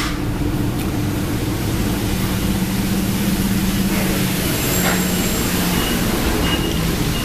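Steady, loud background rumble and hiss with a faint low hum, without clear events.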